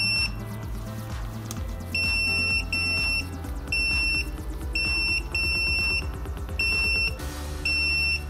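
Electronic beeper of a MUSTOOL MT8206 digital multimeter sounding a string of short, high, identical beeps, about once a second, over background music.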